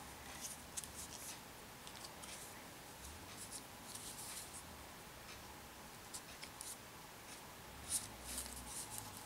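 Faint rustling and scraping of rolled paper weaving tubes being pulled over one another and braided into a basket handle, in short scattered scratches, the loudest near the end.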